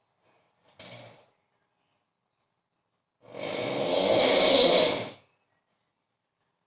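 A man snoring very loudly in his sleep: a brief faint sound about a second in, then one loud snore on an in-breath lasting about two seconds.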